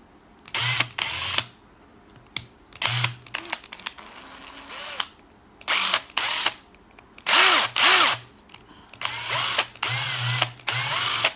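Milwaukee impact driver run in about six short trigger bursts, forward and reverse, its motor spinning up and winding down each time. It is working normally again after being taken apart and put back together.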